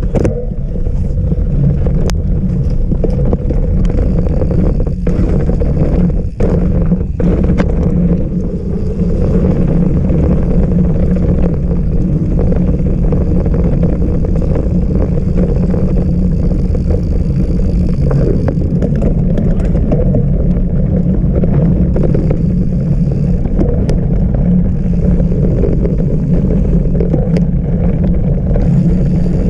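Mountain bike being ridden on a trail, heard through a GoPro: steady wind rush on the microphone and tyre rumble, with a few sharp knocks from the bike over rough ground in the first seven seconds or so.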